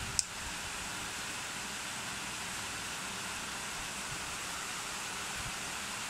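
Khind BF 12S slim box fan running: a steady rush of air. One brief sharp tick comes just after the start.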